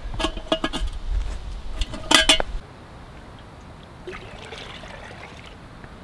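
Metal lid of a cast iron Dutch oven clinking and knocking as it is handled, with a few short rings and the loudest knock about two seconds in. Then, after a cut, a faint gentle trickling and lapping of lake water as a container is dipped and filled at the shoreline.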